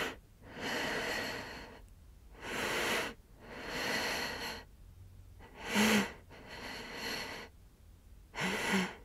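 A person breathing heavily, with one noisy breath about every second to second and a half and two short voiced catches, one a little past the middle and one near the end.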